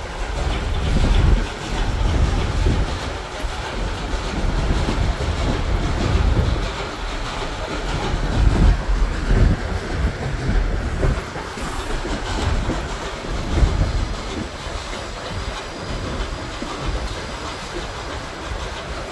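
Passenger train rolling along the track, its wheels clacking over the rail joints, with a steady rumble heard from an open-air car.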